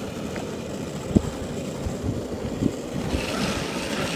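Longboard wheels rumbling down an asphalt road, with wind on the microphone and a couple of knocks. About three seconds in, a scraping hiss begins as the rider puts a gloved hand to the road and slides the board.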